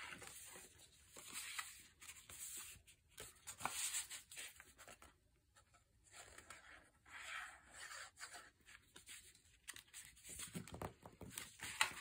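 Thick scrapbook paper being handled, folded and pressed down, making faint, irregular rustles and scrapes.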